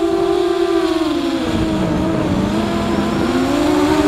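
FPV quadcopter's electric motors and propellers whining, several close pitches together; the whine drops in pitch about a second in as the throttle comes off, then climbs back up near the end.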